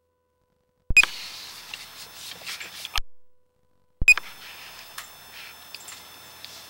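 Dead silence broken twice, about three seconds apart, by an abrupt start with a click and a short electronic beep, each followed by faint hiss and scattered small clicks; the first stretch cuts off suddenly after about two seconds.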